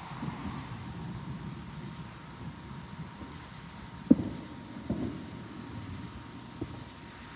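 Night insect chorus trilling steadily on one high pitch, over a low rumble of wind and distant thunder. Two short low thumps about four and five seconds in.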